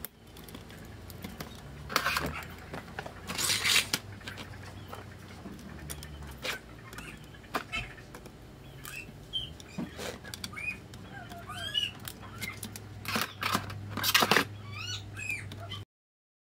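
Scattered small clicks and a few louder short scraping or rustling noises, with small birds chirping in the background in the second half and a low steady hum underneath. The sound cuts off abruptly near the end.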